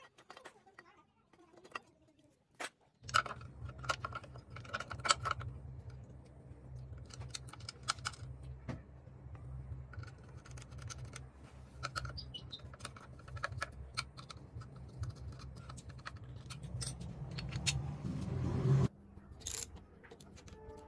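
Metal clinks and taps of a spanner, bolts and motorcycle frame parts being handled and fitted. A steady low hum runs under them from a few seconds in until it cuts off near the end.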